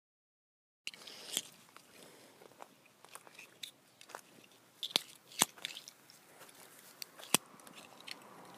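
Footsteps crunching on dry wood-chip mulch, with several sharp clicks. It starts about a second in, after a brief dead gap.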